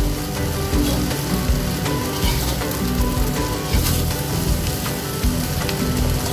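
Fried rice sizzling in a hot wok as a spatula tosses it, with scattered scrapes of the spatula against the pan, over soft background music.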